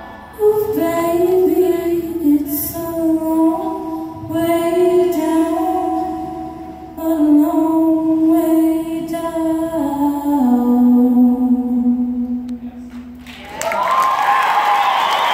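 A cappella vocal group singing in close harmony, with several voices holding long chords and the song closing on a sustained low chord. Near the end the audience bursts into applause with whoops.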